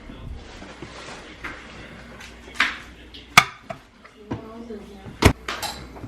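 Kitchen handling clatter: two sharp clacks, about three and five seconds in, among softer knocks, with faint voices.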